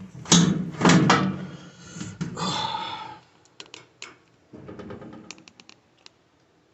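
Hands handling the washer's parts and wiring during a lid switch replacement: rustling and clattering for about three seconds, then a run of short, sharp clicks.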